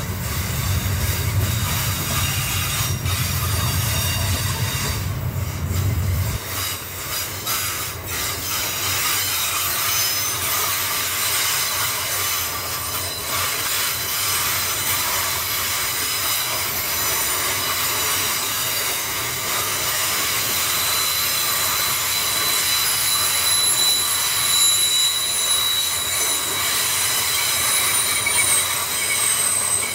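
Freight train wagons rolling past with a steady rushing rail noise and high-pitched wheel squeal. A deep rumble underneath stops suddenly about six seconds in.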